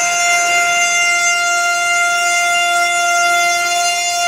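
CNC router with a rotary axis carving a wooden log. The high-speed spindle motors give a steady, unchanging whine over the rasp of the cutters biting into the turning wood.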